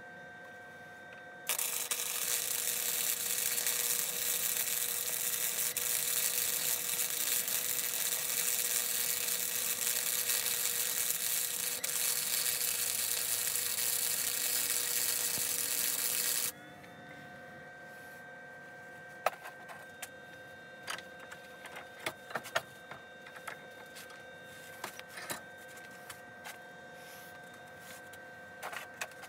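Electric arc welding on a steel fork tube: a steady hiss of the arc that starts about a second and a half in and cuts off suddenly about halfway through. It is followed by scattered clicks and light knocks of metal parts being handled.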